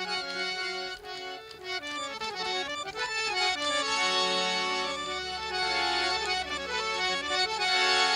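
Instrumental passage of Sufi folk music: a harmonium playing a melody of held notes that step from one pitch to the next over a steady drone.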